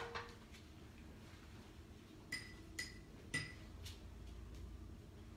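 Metal cookware clinking: a soft knock, then three light ringing clinks about half a second apart, as a ladle and frying pan are handled on the stove.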